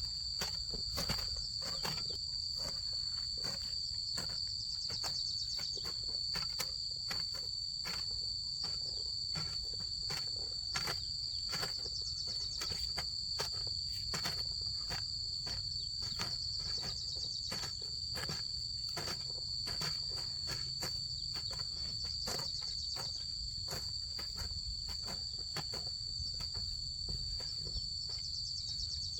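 Insects droning in a steady high continuous chorus, with frequent short irregular knocks and scrapes beneath it.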